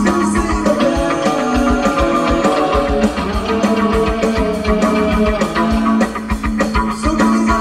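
Music with guitar over a steady beat.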